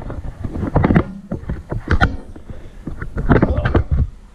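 Handling noise from a handheld camera being picked up and swung around: irregular rubbing, bumps and knocks on the microphone.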